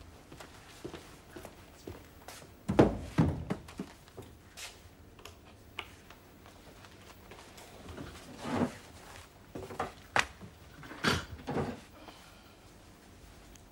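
Scattered thuds, knocks and light clicks of a man moving about a quiet office: footsteps, papers and objects set down on a desk, and sitting down at it. The loudest thud comes about three seconds in, and a second cluster of knocks comes later.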